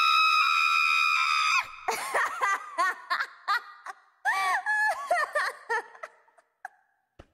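A long, high-pitched scream held on one pitch cuts off about a second and a half in. It is followed by a woman's cackling laughter, rising and falling in bursts and fading out near the end.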